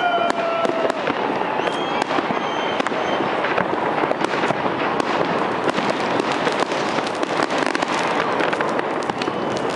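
Fireworks display going off: a continuous barrage of bangs and crackling, with a few thin whistles in the first three seconds.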